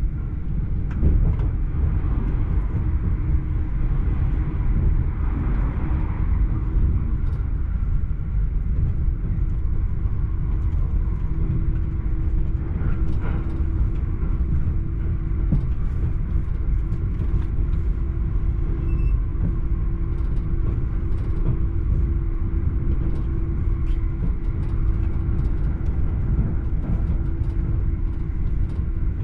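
Electric commuter train running at speed, heard from inside the passenger car: a steady low rumble with a constant hum and faint clicks.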